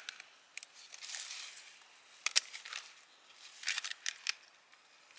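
Crisp cabbage leaves snapping and rustling as they are peeled off the head by hand: a few soft crackles and several sharp snaps, the loudest a little after two seconds in, with another cluster around four seconds in.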